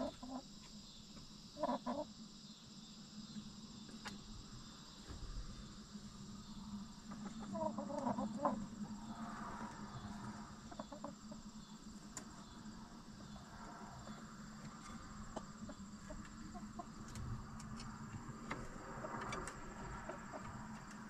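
Backyard hens clucking softly while settling to roost at dusk, with a few short calls about two seconds and eight seconds in and fainter ones later. A steady low hum runs underneath.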